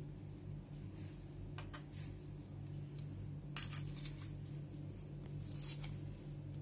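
Hands kneading semolina dough in a stainless steel plate: short scrapes and light clinks as fingers, rings and dough rub and press against the metal, louder about halfway through and again near the end, over a steady low hum.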